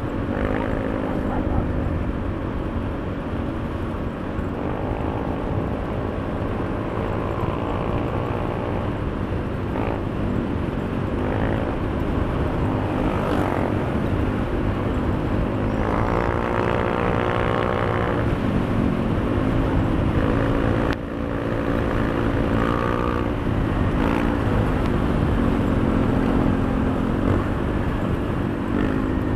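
A Honda Beat 110 FI scooter's single-cylinder engine running on the move, its pitch rising and falling with the throttle, over a steady rush of wind.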